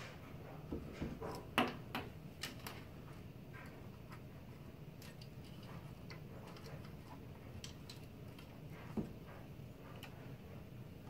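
Small clicks and knocks of a plastic fan carrier bracket being handled and fitted into a TV chassis, a cluster of them in the first couple of seconds with the loudest about one and a half seconds in, then scattered faint ticks and one more knock near the end.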